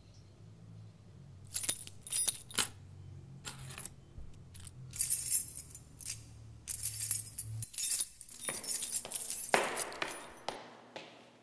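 A bunch of keys jangling and clinking as they are picked up and handled, in several bursts over a low hum that stops suddenly. Near the end come evenly spaced knocks about twice a second.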